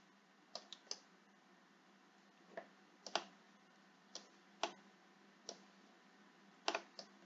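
Computer mouse clicking, about a dozen faint single and double clicks at uneven intervals while text is selected on screen.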